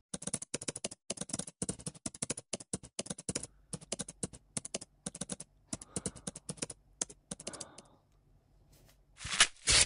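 Fast typing on a computer keyboard, keys clicking in quick runs with short pauses, stopping about eight seconds in. Near the end a loud rustling starts.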